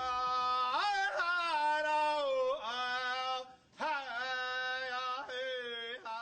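A lone voice singing a chant, unaccompanied, holding long notes that slide up and down between pitches, with a brief break for breath about two-thirds through.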